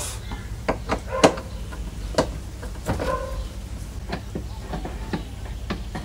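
Plastic door-trim top cover on a Toyota Previa front door being taken off and handled: a run of scattered clicks and knocks, the sharpest about a second in.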